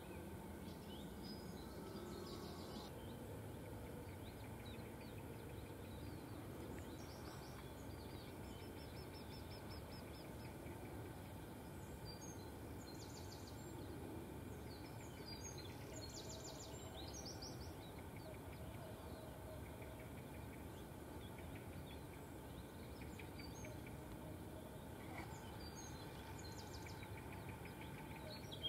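Outdoor ambience: a steady low background noise with scattered songbird calls, short high notes and quick trills coming and going throughout, busiest in the middle.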